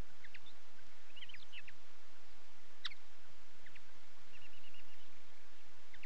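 Small songbirds giving short, sharp chips and chirps scattered through, with a quick run of repeated notes about four seconds in, over a steady background hiss.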